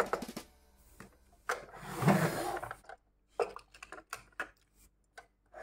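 A small die-cast toy car being handled and pushed into a hard plastic slot of a toy carrier truck: a run of light clicks and taps, a scraping slide about two seconds in, then a few more separate taps.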